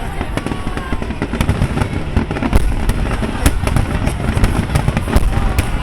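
Fireworks finale barrage: many sharp bangs and crackles in quick, irregular succession over a continuous low rumble of bursting shells.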